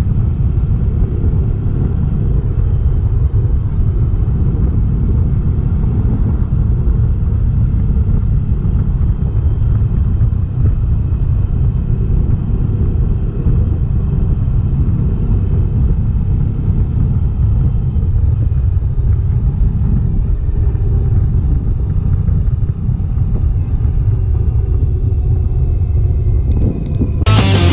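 Steady low rumble of riding on a 1994 Honda ST1100 motorcycle: wind buffeting the microphone over engine and road noise. Music comes in right at the end.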